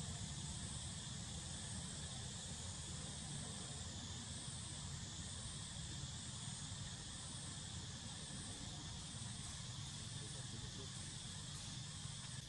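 Insects buzzing in a steady high-pitched chorus that wavers a little, over a low background rumble.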